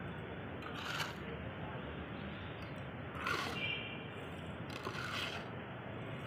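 Mason's trowel scraping and mixing through a pile of cement and stone grit on hard ground: three scrapes, about one, three and five seconds in, over a steady low hiss.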